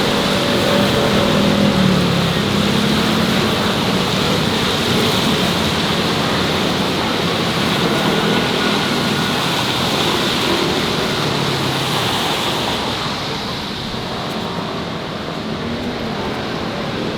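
Steady city street traffic noise, the road noise of passing vehicles, easing off slightly near the end.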